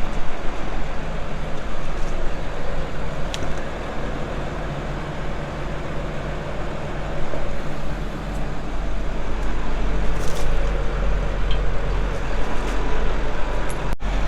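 Engine of a farm vehicle running steadily at low speed while it is parked under cover, with a few light clicks.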